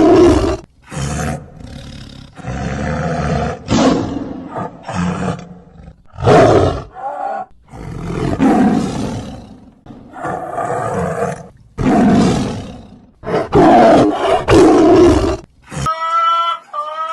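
Lion roaring over and over: a string of loud, rough roars and grunts a second or two apart. Just before the end it cuts to a high, wavering whine.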